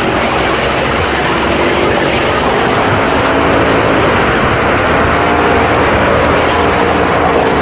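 Paramotor engine and propeller running steadily in flight, a loud continuous drone whose pitch wavers slightly, mixed with the rush of air.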